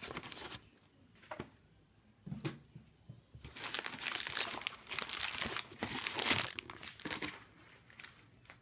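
Plastic air-cushion packing crinkling as it is handled and pushed aside inside a cardboard box: a few scattered crackles at first, then several seconds of dense crinkling from about three seconds in.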